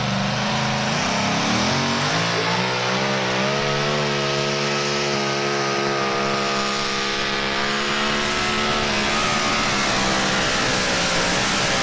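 Competition pulling tractor's engines at full power during a pull down the track: the pitch climbs over the first couple of seconds, holds steady through the run, then falls away near the end as the tractor slows.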